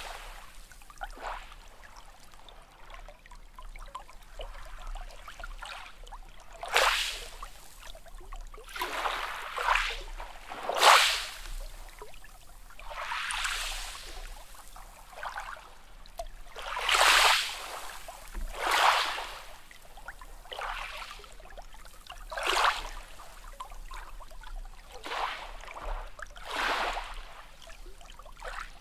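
Small sea waves lapping and splashing, a rush of water every couple of seconds with quieter trickling between.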